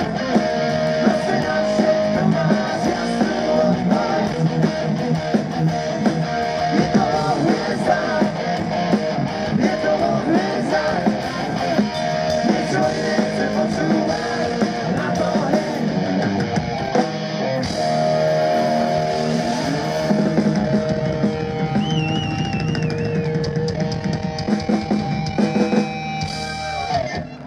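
Live rock band playing: electric guitars, bass guitar and drum kit. The music stops abruptly near the end.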